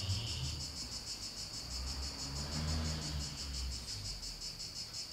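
A sleeping pet snoring: a low snore at the very start and a longer one from about two to four seconds in. Behind it, crickets chirp steadily in a rapid pulsing trill.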